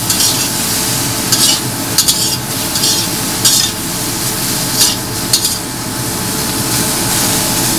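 Metal wok turner scraping and tossing sliced onions in a stainless steel round-bottom wok, the onions sizzling in the hot pan. The scrapes come irregularly, about one or two a second, with fewer near the end.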